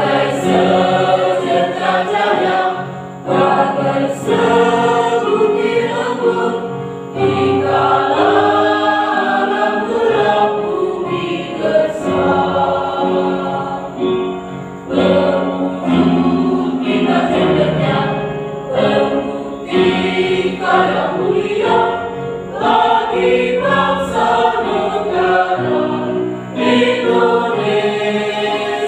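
Mixed choir of men's and women's voices singing together, the phrases separated by brief breaks.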